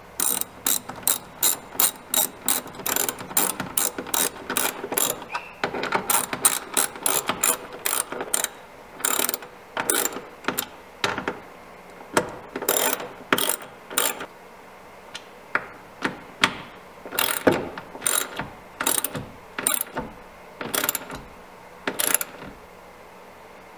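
Hand ratchet wrench clicking as the nuts on a sailboat chainplate's bolts are tightened from below. Quick runs of clicks at first, then short bursts of clicks about once a second, stopping near the end.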